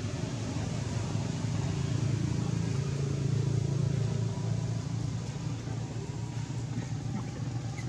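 A low engine drone over a steady outdoor hiss, swelling about halfway through and then easing off, like a motor vehicle passing.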